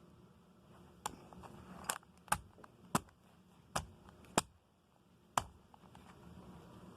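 A series of seven sharp clicks and knocks, irregularly spaced over about four seconds, like hard objects being handled and set down.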